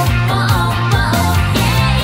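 Japanese pop-rock song: a voice singing the lyrics over a band, with a steady bass line and drums.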